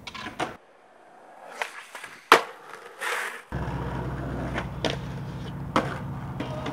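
Skateboard being ridden and popped: sharp clacks of the tail and wheels striking and landing, the loudest about two seconds in, and a brief scrape around three seconds. From about three and a half seconds in, a steady rumble of hard wheels rolling over rough pavement, broken by a few more clacks.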